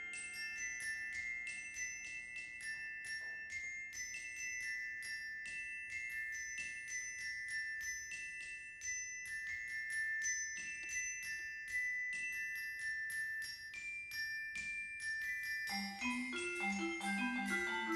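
Percussion ensemble playing high-pitched mallet percussion: a quick, steady stream of struck, ringing notes, about four a second. About two seconds before the end, lower mallet notes join in.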